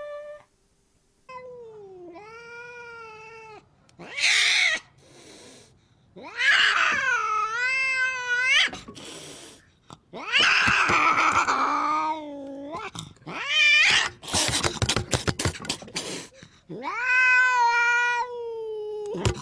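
A long-haired cat giving long, drawn-out yowling meows, four in a row, each bending up and down in pitch. Short bursts of rough, noisy sound come between some of the calls.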